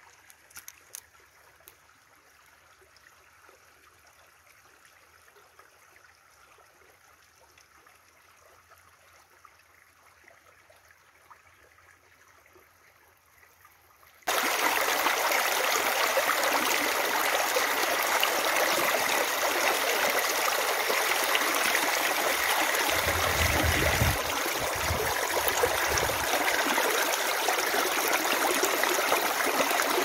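Faint, steady outdoor hiss, then, about halfway through, an abrupt switch to loud close-up water: a small spring-fed stream splashing and rushing over rocks, with a few low bumps partway through.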